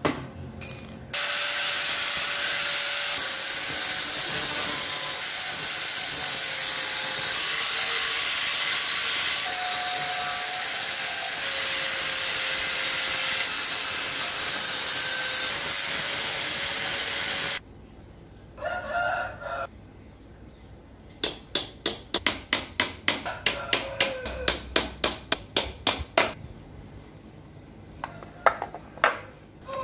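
A power tool running steadily on wood for about sixteen seconds, then stopping abruptly. After a pause comes a run of short, even strokes on wood, about three a second.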